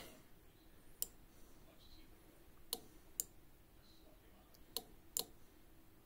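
Relay switching with short sharp clicks: five in all, the last four in two pairs about half a second apart, as it pulls in and drops out.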